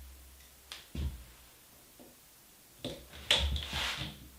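Small clicks and taps from handling a screw, the screwdriver and a plastic handle against the aluminium screen frame, a couple near one second in, then a longer rustling scrape about three seconds in.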